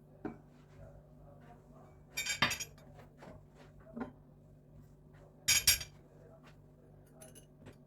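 Dishes and cutlery clinking: a short burst of clinks about two and a half seconds in and another about five and a half seconds in, with a few light taps between, over a faint steady hum.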